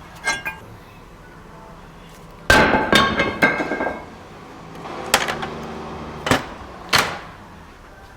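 Metal-on-metal clanks and knocks with a short ring: brake parts and tools being handled and struck. There is a quick cluster of hits a little before halfway, then three single clanks spaced over the following few seconds.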